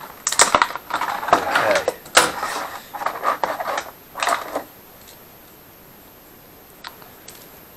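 Rustling and clicking of packaging and small metal parts being handled while lever protectors are taken out of their box. The busiest part runs for about four and a half seconds, then a single click comes near the end.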